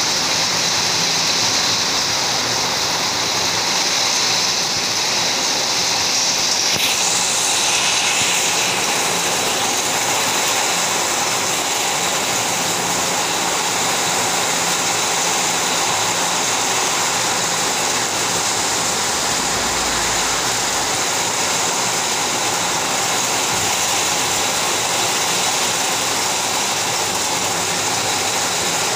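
Heavy downpour: rain falling in a steady, even hiss.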